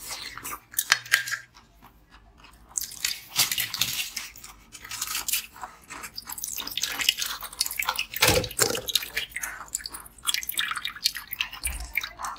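Close-up biting and chewing of a block of frozen red drink slush ice: dense, crisp crunching and crackling, with a short lull about two seconds in and one dull knock a little past the middle.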